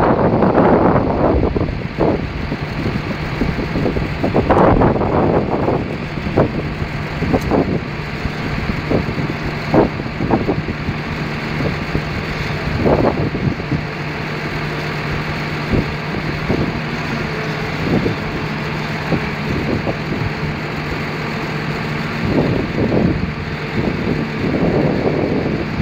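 John Deere tractor running a trailed JF 1350 forage harvester chopping silage, with a second John Deere tractor and trailer running alongside: a steady engine drone with a low hum. Irregular buffets of wind hit the microphone.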